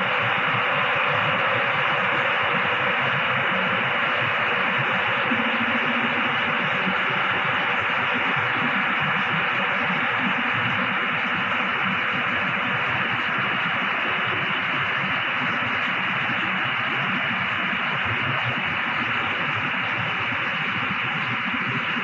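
Mack TerraPro truck's diesel engine running steadily in a shop bay, heard as an even rushing noise with no clear beat and no change in level.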